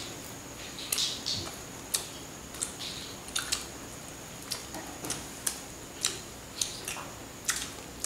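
Eating by hand: small irregular clicks and crackles as pieces of cooked egret are pulled apart at the bones and chewed, about a dozen scattered sharp ticks.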